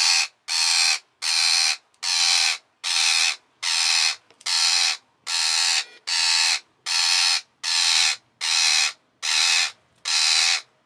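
Rose-ringed parakeet screeching: harsh, rasping calls repeated evenly about twice a second. These are the distress calls of a bird held in hand while netting tangled around it is cut away.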